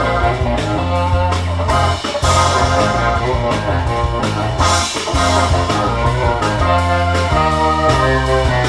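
Rock music with a steady beat and heavy bass, played back through Eosone RSF-1000 4-way floor-standing loudspeakers driven by a Marantz PM7000N amplifier, as picked up by a microphone in the room.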